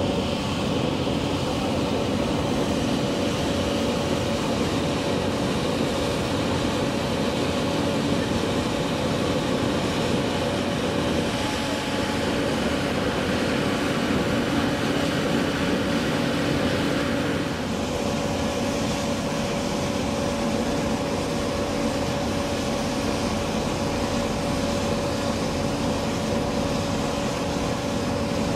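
Ship's machinery running: a loud, steady drone with a constant hum. It eases slightly in tone about two-thirds of the way through.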